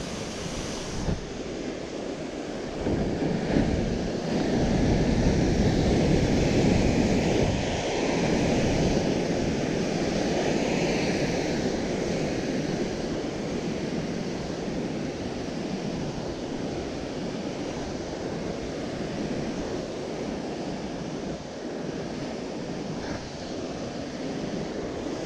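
Ocean surf breaking and washing over rocks at the foot of a sea cliff, a continuous wash that grows louder for several seconds from about three seconds in, then settles.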